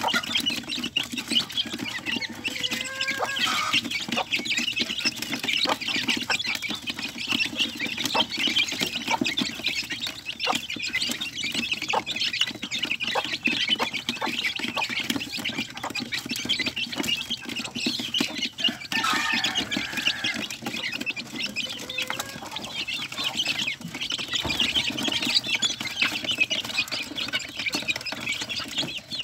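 Young chicks peeping constantly as they feed, with many quick taps of beaks pecking at a trough feeder. Twice, about three seconds in and near the middle, a lower, longer chicken call stands out.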